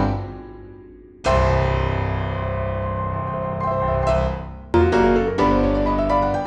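Background music led by piano-like keyboard notes. It drops away for about a second, comes back with one long held chord, and a run of quick notes with a rising line starts near the end.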